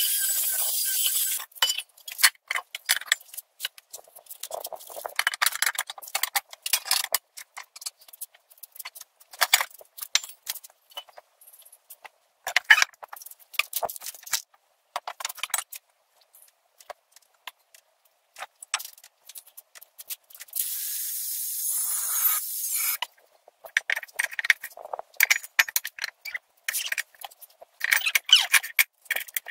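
Steel stove parts clinking, rattling and scraping as they are handled on a wooden workbench, in many short sharp knocks. An angle grinder runs against steel for about a second and a half at the start, and again for about two seconds a little past two-thirds of the way through.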